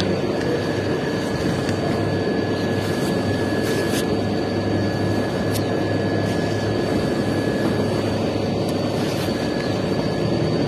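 A steady mechanical engine drone with a constant hum, unchanging throughout, with a few faint clicks over it.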